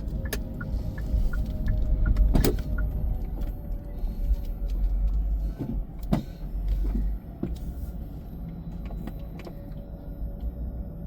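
Car driving, with a steady low road rumble. A few sharp knocks, the loudest about two seconds in and another about six seconds in, come as the car goes over a speed bump.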